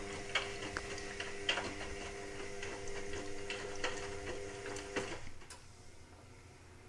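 Indesit WIXL143 washing machine clicking irregularly over a steady mechanical hum for about five seconds, then going quiet: the fault clicking that the machine makes before it stalls and fails to finish its cycle.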